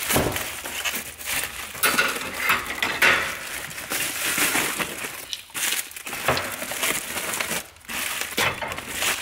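Bubble wrap and plastic packaging crinkling and rustling as it is handled and pulled open, with light clinks of metal hardware in the bags.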